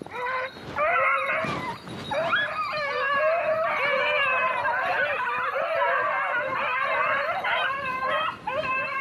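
Several hunting dogs baying and howling together, their overlapping wavering calls running almost without a break.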